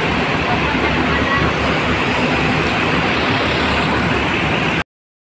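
Loud, steady din of an indoor bus terminal: a low rumble of idling buses and traffic noise. It cuts off suddenly near the end.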